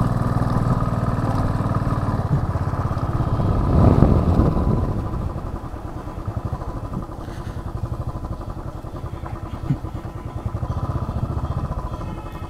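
Royal Enfield Thunderbird 500's single-cylinder engine running under way. It swells louder for a moment about four seconds in, then drops to a quieter, slow and even beat as the motorcycle eases down.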